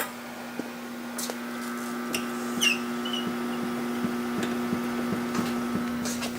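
Water well pump running, a steady hum with several fixed tones and scattered faint ticks, as it pumps the pressure tank up toward its pressure-switch cut-off after the valve is closed.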